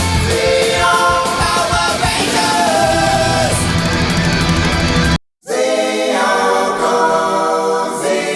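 Rock music with a singing voice over a band. It cuts out completely for a moment about five seconds in, then carries on.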